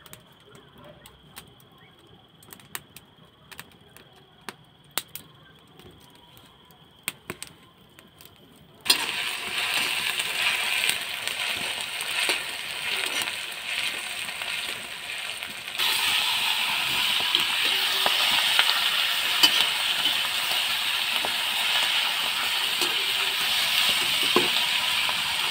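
Sliced onions sizzling in hot oil in a metal wok over a wood fire, stirred with a slotted spatula. The sizzle starts suddenly about a third of the way in and gets louder about two thirds through, as the duck meat fries in the wok. Before that there is a quieter stretch with scattered sharp clicks.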